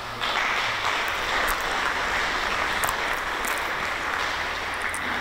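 Audience applauding, the clapping starting abruptly a moment in and keeping up steadily.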